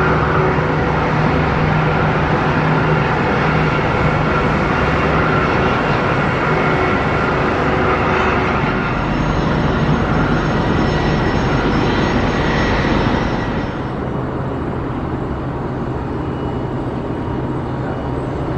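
Steady jet turbine noise from an airliner on the apron, with faint high whining tones over it. It drops a little in level about fourteen seconds in.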